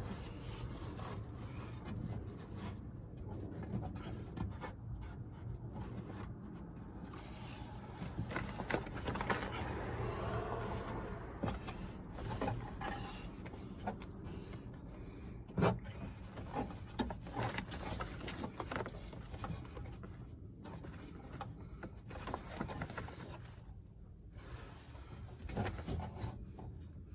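Rubbing, scraping and scattered light clicks of a car door's window glass and inner door parts being handled and worked into place, with one sharp knock about 15 seconds in.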